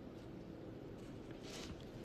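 Faint scratch of a pencil drawing on paper: a short stroke about one and a half seconds in, over quiet room tone.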